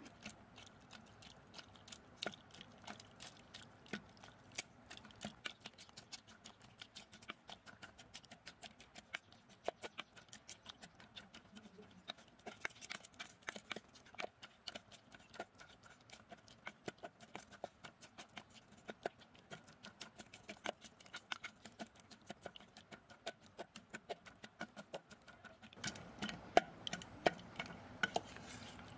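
Wooden pestle pounding and mashing cooked jackfruit seeds, bamboo shoot and turmeric leaves in a metal pot: a fast, irregular run of knocks, louder over the last few seconds.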